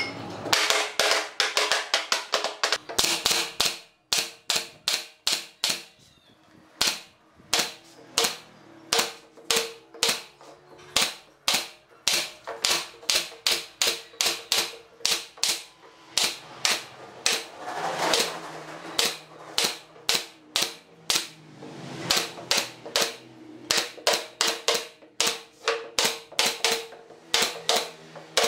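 Pneumatic brad nailer firing nails into wooden boards: a sharp snap with each shot, in a quick run of about two to three shots a second. The shots are fainter for a few seconds about a third of the way in.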